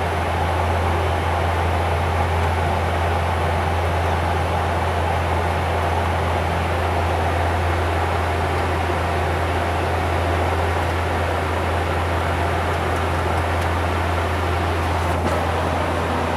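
Cockpit noise of a Bombardier Q400 turboprop airliner in cruise: a strong, constant low hum from its Pratt & Whitney PW150A turboprops over an even rush of air, holding steady throughout.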